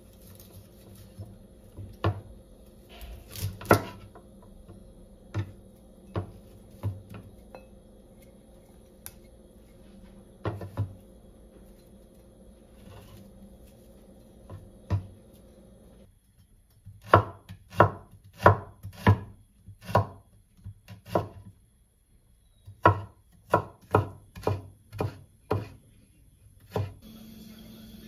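Kitchen knife cutting broccoli on a cutting board: scattered knocks of the blade against the board, then a quicker run of chopping, about two knocks a second, through the second half.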